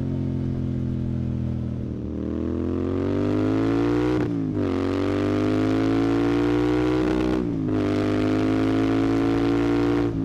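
Royal Enfield Continental GT 650's parallel-twin engine through a Red Rooster aftermarket exhaust, accelerating through the gears. The pitch holds, then climbs, drops sharply with an upshift about four seconds in, climbs again and drops with another shift about seven and a half seconds in, then rises once more.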